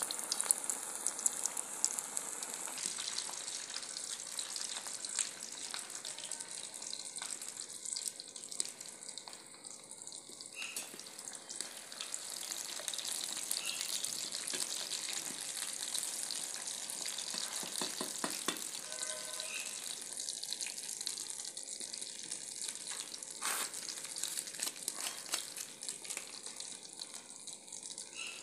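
Koftas deep-frying in hot oil in a karahi: a steady, dense sizzle and crackle of bubbling oil around the frying balls.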